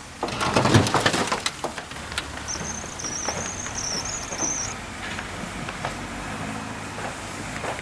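Lego train running on plastic track: a burst of clicks and clatter, then a steady rattling run, with a high wavering squeal for about two seconds in the middle.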